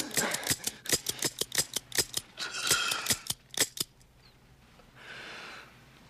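A quick run of sharp metallic clicks, about four or five a second, that stops about four seconds in, followed by a brief soft hiss.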